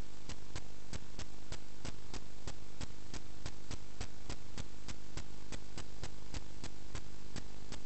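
Sewer inspection camera system's recording: a steady electrical hum and hiss with an even ticking about three and a half times a second.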